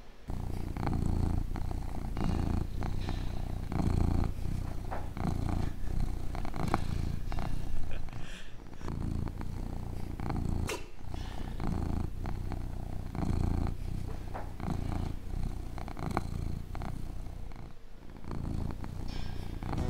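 Abyssinian cat purring close up, a continuous low rumble that swells and eases about once a second, while having its chin scratched.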